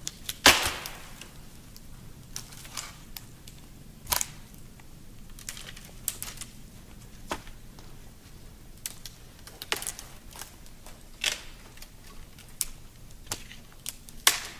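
Dry branches and twigs snapping as they are broken off a fallen tree for firewood. A sharp crack comes about half a second in, followed by irregular smaller snaps and clicks.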